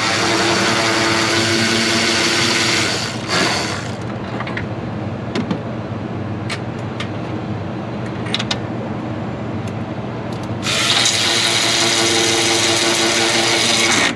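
A power tool runs in two bursts of about three seconds each, with a hiss and a steady whine, as bolts are run out. Quieter clicks and taps come between the bursts.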